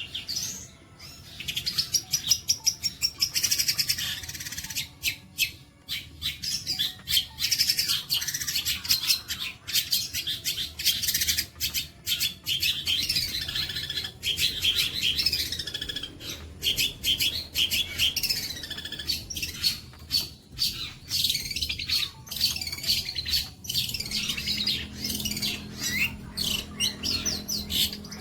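Songbird singing a long, fast, continuous run of chirps, trills and harsh notes, with brief pauses now and then. A faint steady hum joins in near the end.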